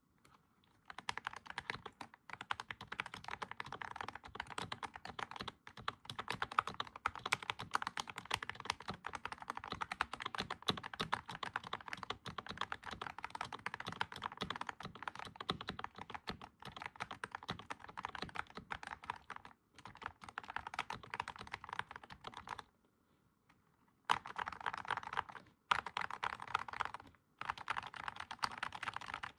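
Fast continuous typing on a Keychron V1 mechanical keyboard fitted with Akko CS Crystal Wine Red switches and PBT keycaps. There is a pause of about a second and a half near the end, then three shorter bursts of typing.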